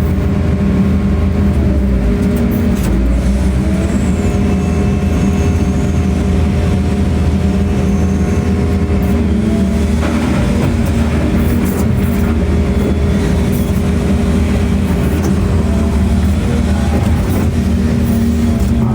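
A large engine running steadily at a constant speed, a loud even hum with no change in pitch.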